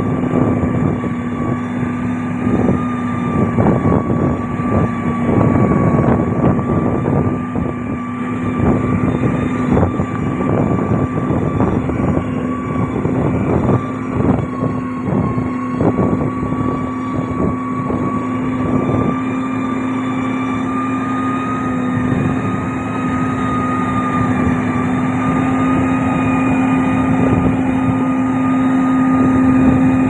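Motor grader's diesel engine running steadily as the blade pushes crushed rock and clay, with frequent knocks and clatter of stones that thin out after about twenty seconds.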